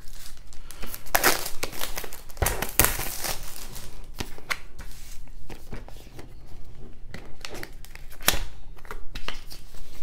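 Packaging being unwrapped: a cardboard watch box handled while plastic wrap and a paper tear strip crinkle and tear. Irregular rustling and tearing with scattered clicks, loudest in a few bursts.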